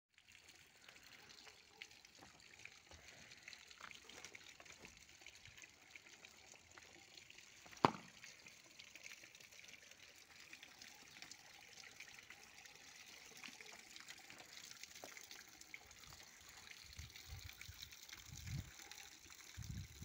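Thin stream of water trickling steadily from a hose-fed porous rock spout and splashing onto the stones of a wall fountain. A single sharp click about eight seconds in, and low rumbles near the end.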